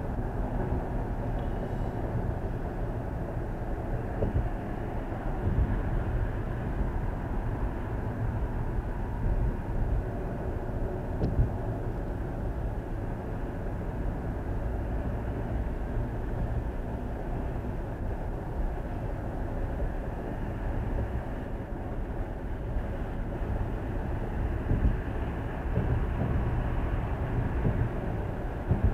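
Steady road noise of a car at expressway speed heard from inside the cabin: a low rumble of tyres on pavement, with a few light knocks from bumps in the road.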